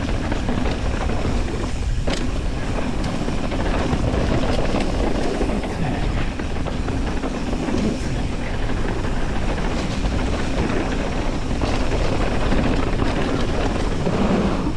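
Mountain bike rolling fast down a dirt trail, with wind rushing over the action camera's microphone and tyre noise, and a few sharp knocks from the bike over bumps.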